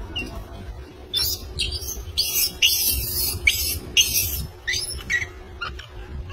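Young macaques squealing and screaming as they scuffle, a rapid string of shrill, high-pitched screams starting about a second in and fading out after about five seconds.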